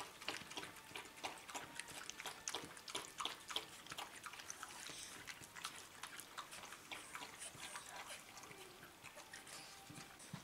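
Dog lapping chicken and carrot soup from a bowl: quick wet licking clicks, several a second, thinning out near the end as the bowl empties.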